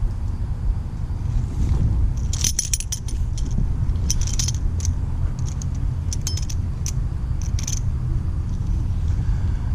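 Metal clinking and rattling in quick clusters over a steady low rumble, as rusted scrap metal and magnet-fishing gear are handled.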